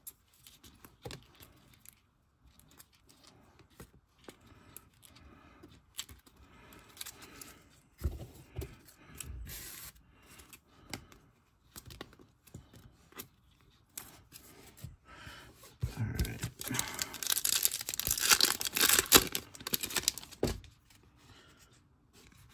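Hockey card pack wrapper torn open and crinkled: a loud stretch of tearing and rustling about four seconds long, starting past the middle. Before it, quieter sliding and clicking of trading cards being handled.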